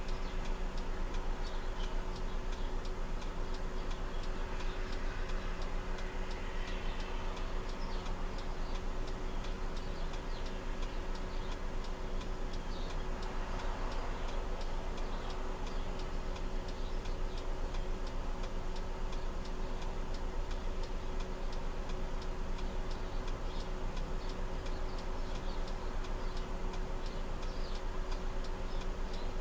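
A car's indicator flasher clicking steadily, several ticks a second, heard inside the cabin over a steady low hum.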